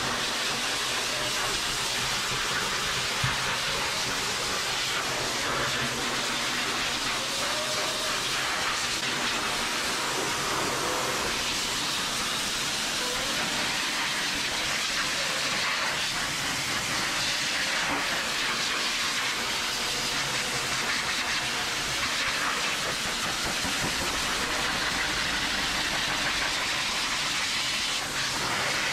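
Small hose-fed pet dryer blowing a steady hiss of rushing air into a dog's wet coat.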